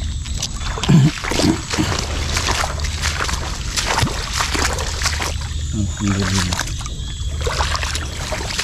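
Water splashing and sloshing among scattered short knocks and rustles, over a steady low rumble.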